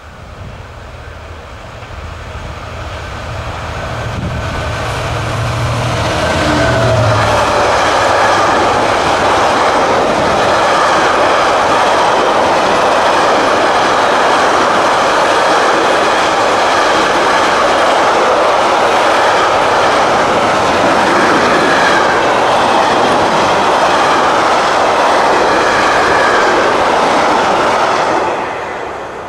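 Container train hauled by a Class 66 diesel locomotive passing close by. The locomotive's engine drone builds for the first several seconds. Then come about twenty seconds of loud, steady rolling and clatter of the container wagons on the rails, which fades sharply near the end as the train goes by.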